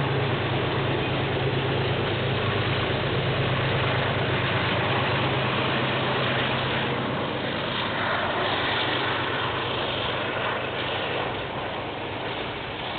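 KiwiRail diesel train passing: a steady low engine drone that fades out about halfway through, leaving the rolling noise of the train, which dies away near the end.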